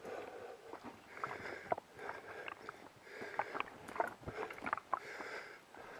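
A person breathing hard while walking a forest trail, about one breath a second, with footsteps and scattered light clicks and knocks.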